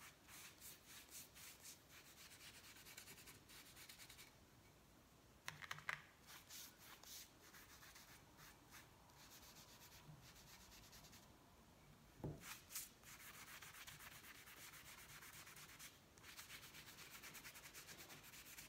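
Faint paintbrush bristles scrubbing water-based stain onto thin plywood strips in quick back-and-forth strokes, with a couple of short pauses. A few light knocks come about six seconds and twelve seconds in.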